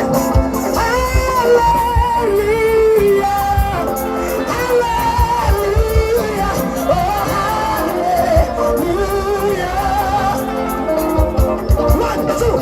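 Live praise music: singers carry a gliding melody over a band with a regular drum beat.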